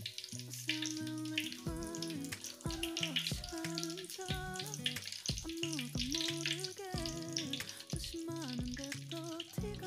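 Hot oil sizzling and crackling in a wok as egg rolls (telur gulung) fry, under background music with a wavering melody and a steady beat.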